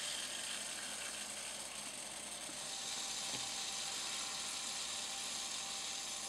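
Espresso inflate-and-repair cartridge hissing steadily as its gas and sealant discharge through the silicone tube into a bicycle tire valve, inflating the tire.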